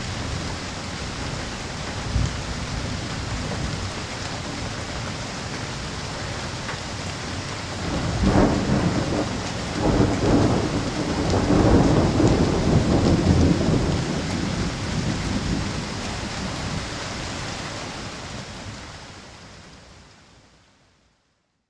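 Thunderstorm: steady rain hiss with a short sharp crack of thunder about two seconds in, then a long rolling rumble of thunder from about eight seconds in that swells and dies away over several seconds. The sound fades out near the end.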